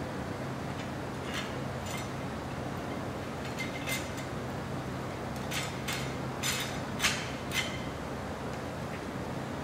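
Steel leaves of an Icon rear leaf-spring pack clinking against each other as they are shifted and aligned by hand: about eight short, sharp metallic clinks, the loudest about seven seconds in. Under them runs the steady noise of a large shop fan.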